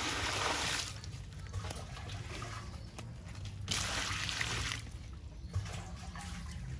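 A stream of water pouring into a metal basin of whole feathered chickens, splashing over the birds and the water already in it. It comes louder in two surges, at the start and again about four seconds in.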